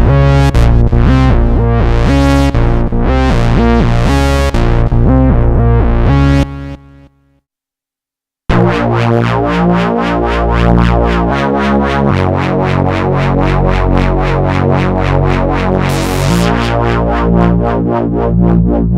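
Korg Minilogue four-voice analog synthesizer playing preset patches: a bright, rhythmic patch of rapidly repeated notes that dies away about seven seconds in, a second and a half of silence, then a new patch of held chords that grows brighter near the end.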